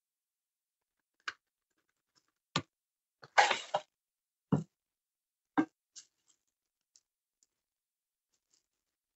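A cardboard gift box and its contents being handled during an unboxing: a few separate light knocks and bumps, with a louder rustle of about half a second a little past the middle.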